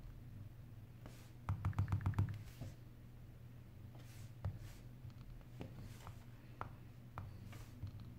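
Fingertips tapping on an iPhone 8 Plus's glass screen: a quick run of about eight taps around two seconds in, then single taps every half second or so, over a low steady hum.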